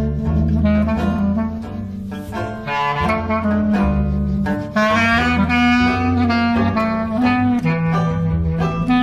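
Clarinet playing a swinging jazz melody over a strummed four-string-style banjo rhythm and a plucked double-bass line.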